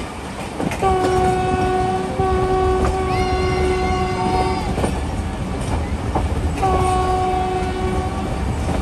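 Diesel locomotive horn sounding one long blast of about four seconds and then a shorter blast of about a second and a half, over the steady rumble of a moving train.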